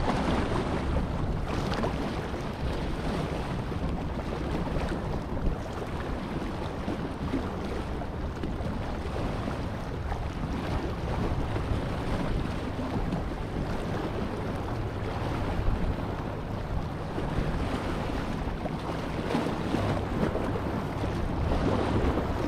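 Small waves washing and splashing over a rock shelf at the water's edge, with wind buffeting the microphone in a steady low rumble.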